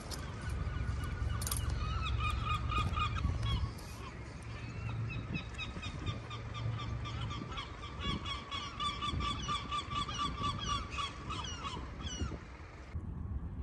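Bird calls in long runs of rapid, short repeated notes, over a low rumble that is loudest in the first few seconds. The calls stop about 13 seconds in.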